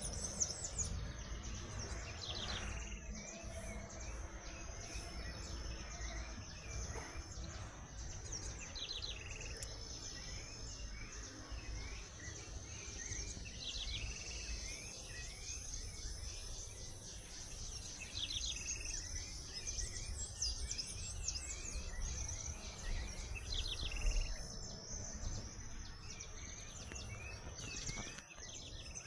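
Birds chirping and calling, with short calls repeating every few seconds, over a steady high-pitched tone and a low background rumble.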